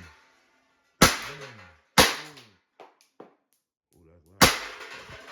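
Umarex T4E TP50 .50-calibre CO2 pistol firing three shots: two about a second apart, then a third about two and a half seconds later.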